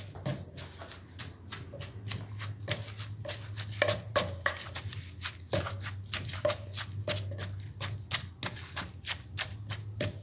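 Close-up eating sounds: irregular crisp clicks and crunches of chewing the crunchy shredded papaya salad, several a second, over a steady low hum.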